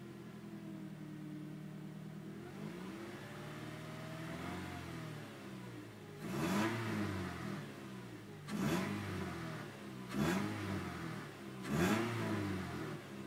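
2004 Nissan Sentra SPEC-V's 2.5-litre four-cylinder engine idling steadily, then revved in four quick blips from about halfway through, each rising and falling in pitch. The engine is being run to bring out a noise that turned out to be a failing alternator.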